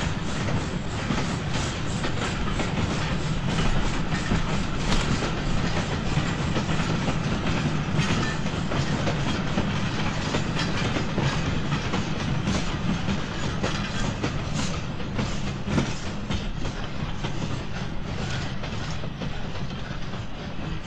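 Simplon-Orient Express carriages rolling past, their wheels clicking over the rail joints over a continuous low rumble.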